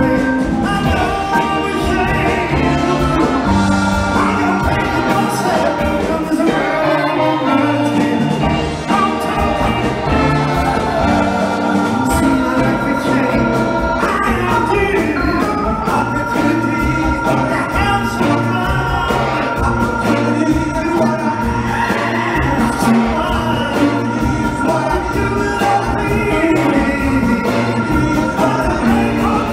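Live soul-rock band playing: drums, electric guitars, organ and a saxophone horn section, with a male lead singer. Long held chords come in from about halfway through.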